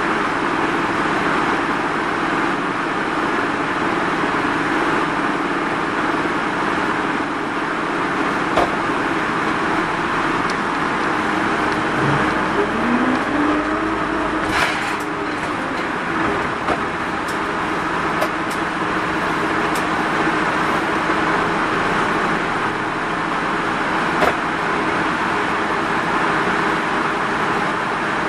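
Mitsubishi Fuso Rosa minibus running, heard from inside the cabin: a steady engine and road noise. About twelve seconds in, the engine note rises as the bus pulls away or accelerates. A few clicks and knocks from the body are heard, the sharpest just after that.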